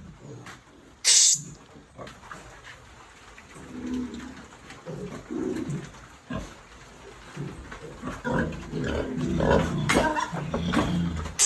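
Pigs grunting and squealing as a boar is brought to a sow in heat for mating, with a sharp short sound about a second in and busier grunting and squealing near the end.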